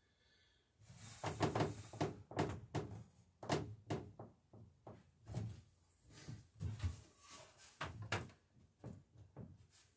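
Irregular wooden knocks and thuds on the planked hull of a wooden dory under construction, more than a dozen, starting about a second in, as it is handled and leaned on.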